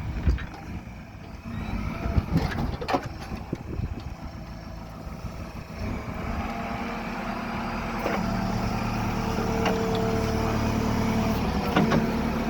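JCB 3CX backhoe loader's diesel engine running as the machine works, with several sharp knocks in the first half; from about eight seconds in the engine runs steadier and a little louder.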